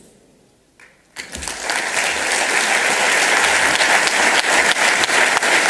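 An audience applauding. After about a second of hush, the clapping starts, swells quickly and holds steady.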